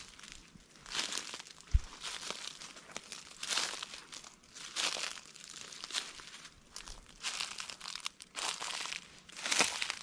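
Footsteps crunching through dry fallen oak leaves, roughly one step a second, with a single brief low thump a little under two seconds in.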